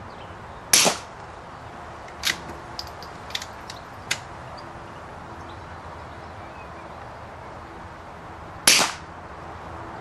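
Two suppressed shots from a .22lr rifle firing CCI Subsonic rounds, about a second in and again near the end: dull reports without the supersonic crack. Between them comes a short run of light clicks and knocks, the bolt being worked to chamber the next round.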